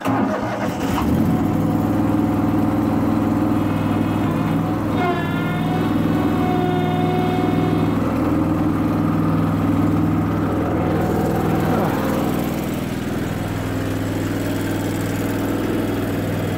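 A Terramite compact loader's engine catches suddenly and runs steadily. Its pitch eases down slightly about twelve seconds in.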